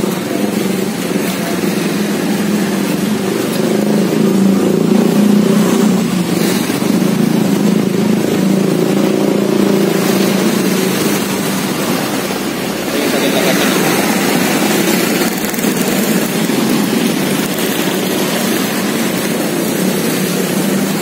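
Continuous road traffic, motorcycle and car engines running and passing by, with the engine hum shifting in pitch and level a little past the middle.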